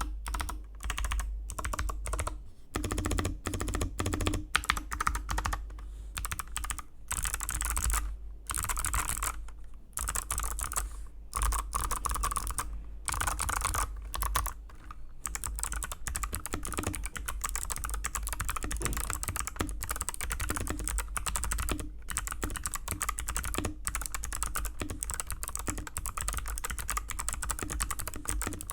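Typing on a mechanical keyboard with Kailh Box White V2 switches, each keypress giving the crisp click of the switch's click bar. Keystrokes come in short runs with pauses at first, then as fast, continuous typing from about halfway on.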